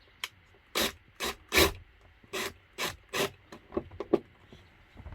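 About ten short, sharp rubbing or scraping strokes on a hard surface, unevenly spaced, the loudest about a second and a half in.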